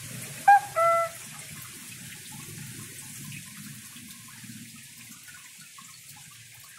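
Steady low sound of water running in a hydroponic greenhouse system. Two short high tones come about half a second and a second in, the second a little lower and longer.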